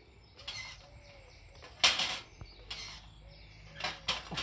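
Servo-driven flipper arm of a small fighting robot being tested: a few short sharp noises, the loudest about two seconds in.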